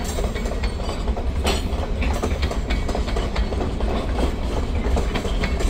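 Loaded freight train of gondola cars rolling past, wheels clacking irregularly over the rails over a steady low rumble.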